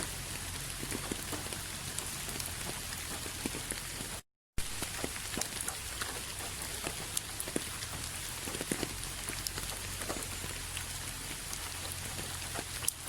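Steady rain falling, a constant hiss dotted with the sharp ticks of individual drops hitting a surface. It cuts out completely for a fraction of a second about four seconds in, then carries on unchanged.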